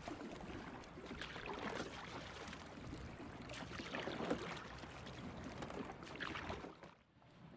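Oars of a small rowing dinghy dipping and pulling through the water, with splashing and water lapping at the hull at each stroke. The sound drops away suddenly near the end.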